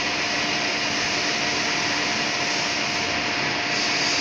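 Steady machinery noise: an even hiss with a constant hum, typical of a powered-up CNC lathe and shop machines running.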